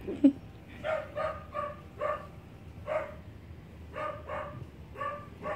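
Puppy yapping: about nine short, high-pitched barks in uneven bursts, with one sharper, louder sound just after the start.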